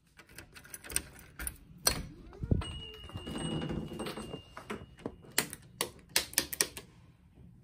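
Key clicking and rattling in a glass door's lock, then the door being opened, with a steady high beep for about two seconds. Near the end comes a quick run of sharp clicks as several wall light switches are pressed.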